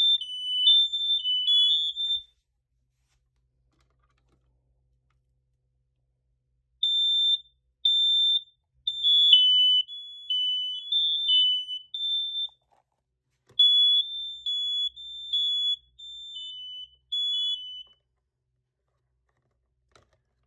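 Several interconnected smoke alarms sounding a test, their horns beeping at two slightly different high pitches that overlap out of step. The beeping comes in three bouts, the first about two seconds long, then after a pause of several seconds one of about five seconds and another of about four, with silence between.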